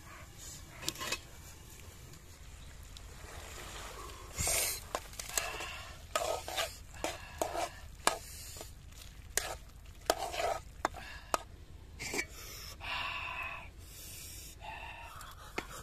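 Metal spatula stirring and scraping thick meat curry frying in an aluminium pot, with a sizzle and irregular clinks of the spatula against the pot, starting about four seconds in.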